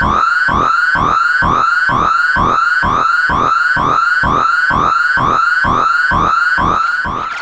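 Synthesized sci-fi alien alarm sound effect: an electronic tone that swoops rapidly upward and repeats about twice a second, stopping just before the end.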